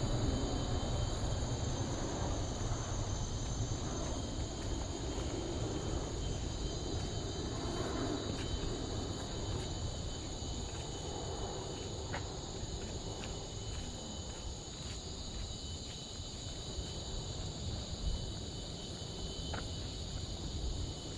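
Steady, high chorus of forest insects buzzing and trilling without a break, over a low rumble that eases after the first few seconds.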